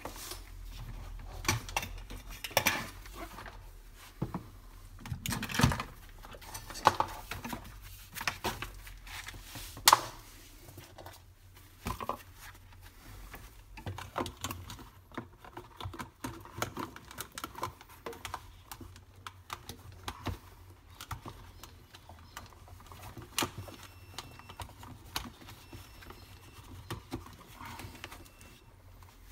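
Irregular clicks, knocks and clatter of tools and metal parts being handled on a workbench while a power drill is set in place on a drilling rig. No motor is running.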